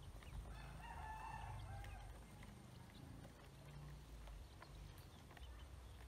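Faint scattered clicks of ducklings pecking at feed in a plastic basin, with one long pitched call about half a second in that lasts a second and a half.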